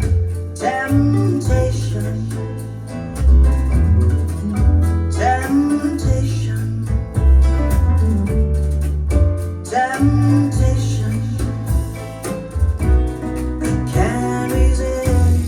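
Recorded song playing over Bowers & Wilkins 606 S3 bookshelf speakers with a subwoofer: a slow track with plucked guitar, a deep bass line and singing.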